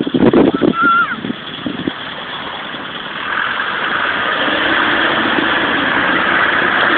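Land Rover Discovery wading through deep muddy water, its engine running under load as water sloshes and sprays around the body and wheels. The engine and the splashing grow louder from about three seconds in.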